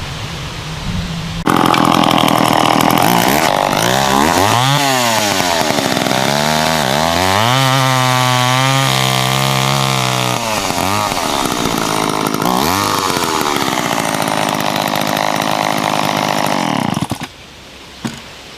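Vintage two-stroke chainsaw with a brand new chain, idling and then opened up to full throttle about a second and a half in. Its engine pitch dips and climbs back several times as it runs, and it drops away near the end.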